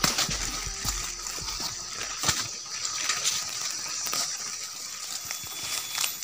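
Leaves and branches rustling, with twigs and leaf litter crackling, as people push through dense forest undergrowth on foot.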